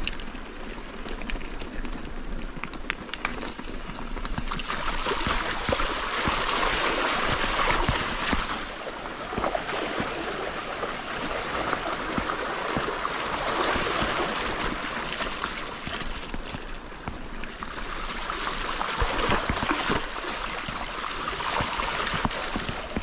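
Rushing, splashing water of a shallow river, swelling and easing every few seconds, with scattered sharp clicks.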